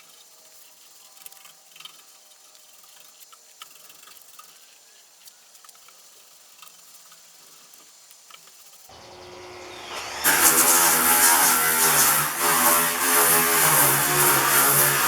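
Faint handling ticks, then about nine seconds in an electric power tool motor spins up and runs loudly and steadily to the end.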